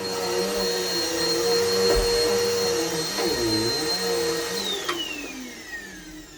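Vacuum cleaner running steadily with a high whine, then switched off about four and a half seconds in, its motor whine falling in pitch as it spins down.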